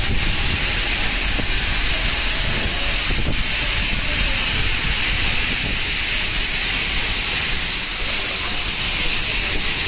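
Steam locomotive 23 023 venting steam: a loud, steady hiss with no exhaust beats.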